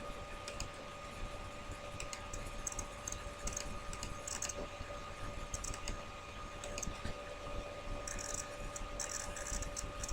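Faint scattered clicks and taps with short scratchy hisses in between, over a steady faint whine.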